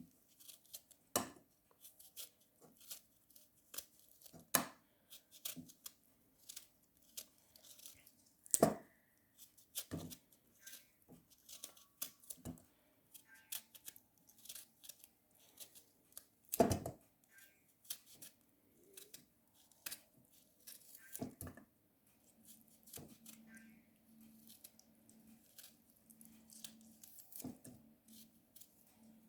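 Irregular clicks, knocks and rustles of kitchen utensils and food being handled during preparation, the loudest knocks about 9 and 17 seconds in, over a faint steady hum.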